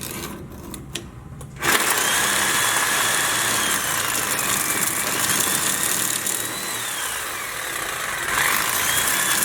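Reciprocating saw (Sawzall) cutting through the steel sleeve of an old leaf spring bushing, starting about a second and a half in after a few light clicks. It runs steadily, its motor whine rising and falling in pitch as it cuts.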